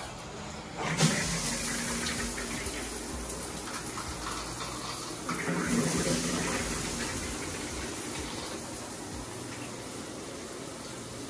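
Water running into a bathtub, a steady rushing hiss that gets louder about a second in and again around five seconds in.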